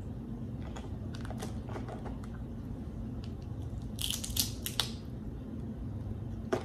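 Snow crab leg shells being cracked and snapped apart by hand to get at the meat: scattered small crackles, then a louder cluster of cracking about four seconds in and a sharp snap near the end.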